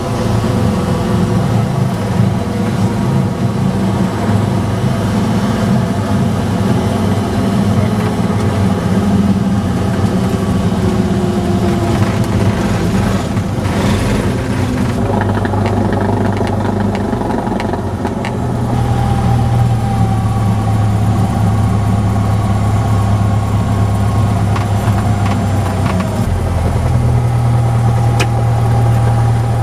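Cessna 172 single piston engine and propeller running at low taxi power, heard inside the cockpit. The engine note steps to a new setting a few times, about halfway through and again near the end.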